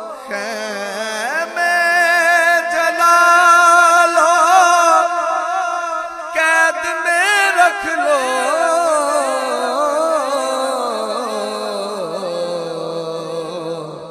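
A solo voice singing a long, ornamented passage without clear words in an Urdu devotional recitation, its pitch wavering and sliding. It swells about a second and a half in and fades near the end.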